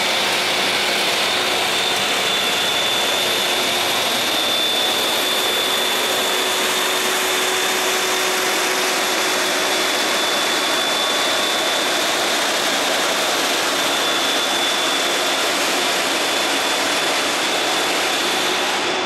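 Motor grader's diesel engine running steadily under load, with a steady high whine over the engine noise.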